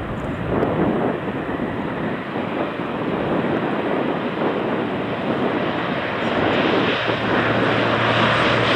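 Jet airliner engines running as an Airbus narrowbody taxis past, a steady rushing roar that grows louder over the last few seconds.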